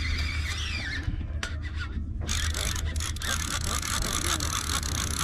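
Conventional lever-drag fishing reel buzzing and whirring under a hooked fish's pull, its drag slipping line while the handle is cranked. The rasping whir grows stronger about two seconds in, over a steady low rumble.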